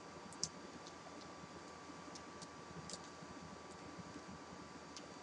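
Faint, irregular small clicks, about eight of them, with the sharpest one near the start and another about three seconds in, over a low room hiss and a thin steady tone.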